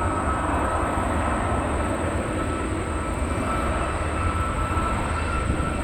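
Jet engines of a Boeing 737 MAX 8 running, a steady low rumble with a high, even whine on top.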